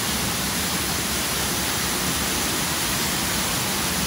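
Steady rush of a waterfall, water falling in a sheet and splashing onto the pool below.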